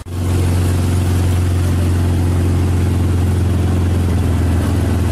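Hangkai 7 HP single-cylinder, 196 cc, air-cooled four-stroke boat motor running at a steady speed while driving the boat along, loud and even in pitch.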